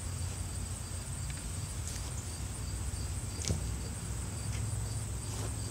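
Insects chirping in a steady, high, even drone over a low steady rumble, with one sharp click about three and a half seconds in.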